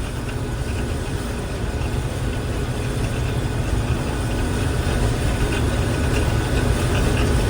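Combine harvester running steadily while harvesting wheat: a continuous low engine and threshing rumble that grows slightly louder.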